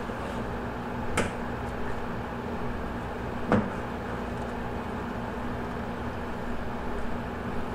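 Two sharp knocks about two and a half seconds apart, the second louder, from a bass carcass and gloved hands bumping a stainless steel worktable as the fish is turned and worked, over a steady background hum.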